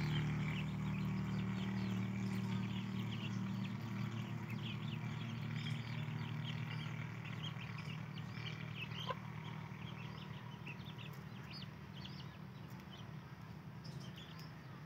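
A brood of young Aseel chicks cheeping constantly in many short, high calls. Underneath is a steady low hum that slowly fades.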